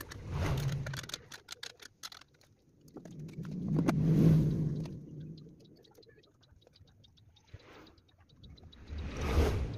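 Small clicks and taps of parts being handled and fitted on a go-kart engine, between three swells of low rumble, the loudest about four seconds in.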